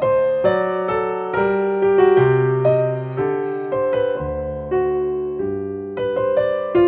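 Piano music: a melody of struck notes, each fading slowly, over held low bass notes.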